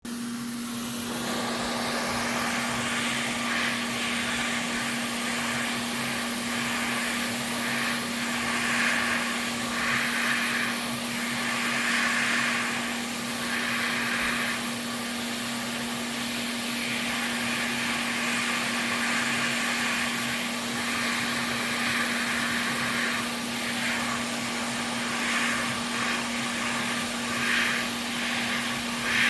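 Small electric cleaning tool for blowing or sucking out dust, its motor switched on at the start and running steadily with a constant hum and a rushing of air. The rush swells and fades over and over as the nozzle is worked over the parts being cleaned.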